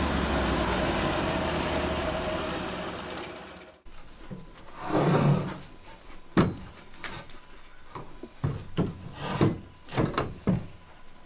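Portable band sawmill running steadily, then cutting off suddenly about four seconds in. After that, a string of wooden knocks and scrapes as a freshly sawn board is shifted and lifted on the squared timber lying on the mill bed.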